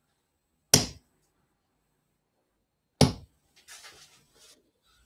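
Two steel-tip darts striking a bristle dartboard, about two seconds apart, each a short sharp thud.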